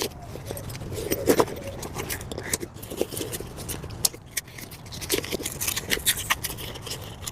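Handling of a heavy-duty Oxford-fabric roll-up tool bag: fabric rustling and scraping with many scattered small clicks and taps.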